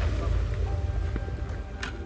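Low rumbling echo of an M4 carbine's burst of fire fading away, under background music with steady tones, and a single sharp crack near the end.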